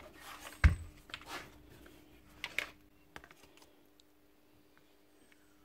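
Clunks and clatters of a Bosch hammer's aluminium gear housing being handled on a workbench: one loud knock about half a second in, two smaller clatters near the middle, a few faint ticks, then quiet.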